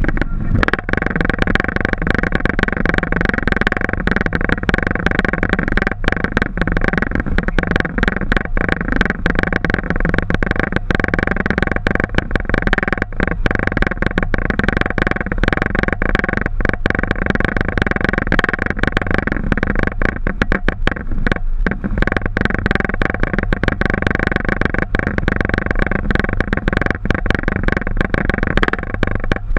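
Boeing 737 cockpit noise: the jet engines running with a steady roar and several steady whining tones over it.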